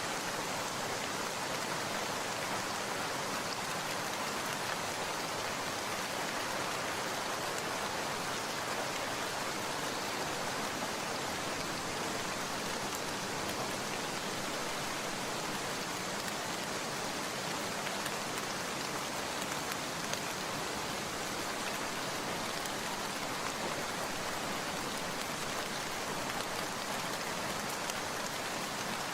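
Steady rain falling, an even hiss of many drops that holds the same level throughout.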